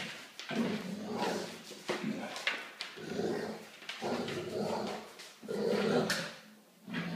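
Two Neapolitan mastiffs growling as they play tug of war with a toy, in repeated rough bouts about a second long with short breaks between them.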